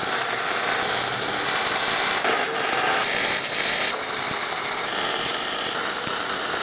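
MIG welding arc on steel, running as a steady crackling hiss while square-tube framing is welded to a steel plate. The tone changes abruptly about two and four seconds in, where separate welds are cut together.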